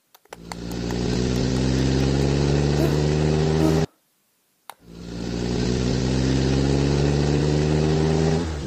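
Car engine sound effect: a few clicks, then the engine catches and swells to a steady running note. It cuts off abruptly after about three and a half seconds, then the same start-up and running plays again and holds to the end.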